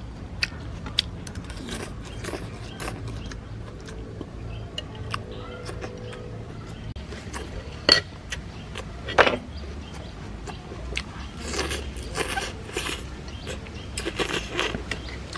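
Metal spoon and fork clinking and scraping on a plate, with chewing and slurping as a mouthful of salad strands is eaten. Two louder clinks come past the middle.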